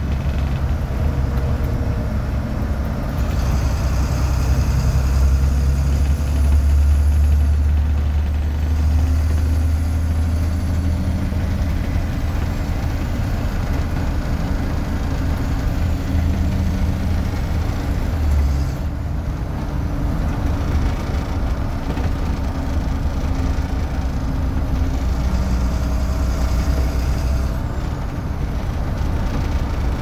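International DT466E turbo-diesel inline-six of a 2004 Blue Bird 3800 school bus, with its Allison MD3060 automatic, running under way as heard inside the cabin: a steady low drone whose note changes a few times.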